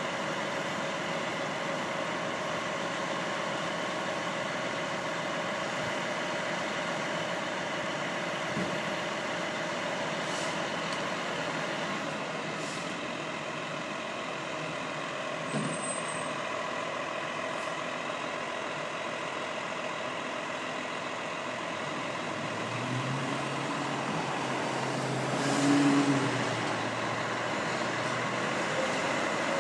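Fire engine running steadily at idle in the station bay. Near the end it gets louder for a moment as the truck pulls out.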